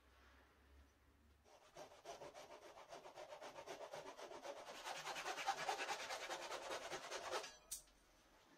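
Hand saw cutting through a small wooden block in quick, even back-and-forth strokes that grow louder, then stop suddenly as the cut finishes. A single short knock follows right after.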